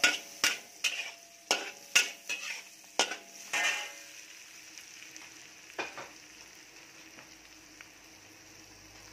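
A metal ladle scraping and knocking against a metal wok, stirring onion and garlic frying in butter. The strokes stop about four seconds in, leaving a low sizzle, with one more knock about two seconds later.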